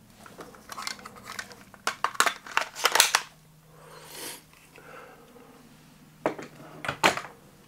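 Handling noises as a pistol is lifted out of a foam-lined pistol safe and turned over in the hands: scattered clicks and knocks, densest between about two and three seconds in, with a soft rustle and two more knocks near the end.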